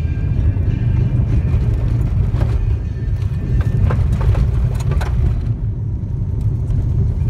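Subaru WRX's turbocharged flat-four engine and tyres heard from inside the cabin while cruising on a gravel road, a steady low rumble. A cluster of sharp ticks and knocks from loose stones against the car comes between about two and five seconds in.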